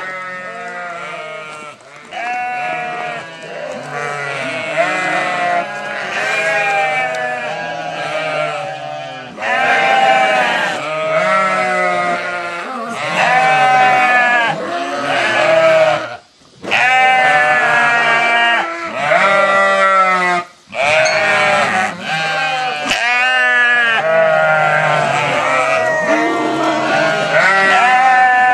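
A flock of sheep bleating: many voices overlap almost without pause. The sound drops out briefly twice, at about 16 and 21 seconds in.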